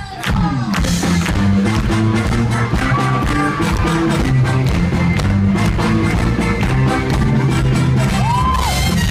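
Live rock band with keyboard, electric guitar and horns playing an upbeat song. The full band comes in about half a second in after a few sharp hits, then keeps a steady pulse.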